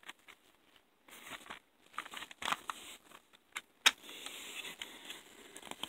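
Plastic CD jewel case being handled and opened: scattered light clicks and rustling, a sharp plastic snap about four seconds in, then steady rustling as it is handled.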